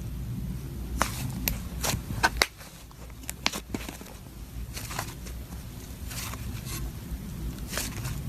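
Crunchy slime being squeezed and worked by hand, giving irregular sharp crackles and snaps over a steady low hum.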